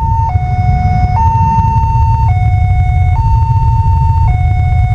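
Electronic warning alarm of a railway level crossing alternating between a higher and a lower tone, each held about a second, signalling that the barrier is down and a train is approaching. A steady low rumble lies under it.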